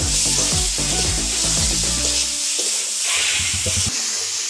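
Boiled potato chunks and spice masala sizzling in hot mustard oil in a steel kadai as a spatula stirs them, over background music that stops about halfway through.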